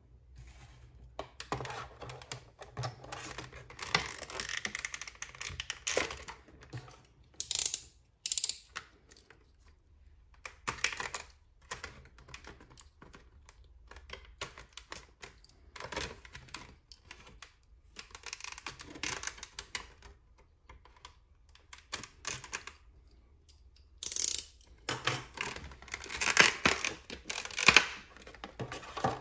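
Thin clear plastic clamshell packaging being handled and pried open by hand: irregular clicking, crackling and crinkling of the plastic, with a few louder snaps, two close together about a quarter of the way in and one near the end.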